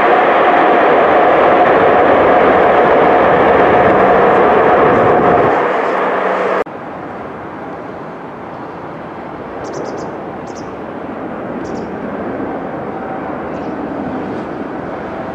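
Loud jet airliner engine noise with a steady whine, cut off abruptly about six and a half seconds in. It gives way to the quieter, steady engine noise of a twin-engine airliner on final approach, slowly growing louder.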